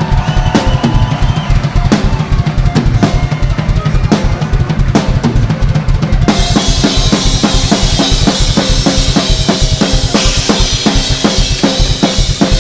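Background music driven by a drum kit with a steady beat; a brighter, busier section starts about halfway through.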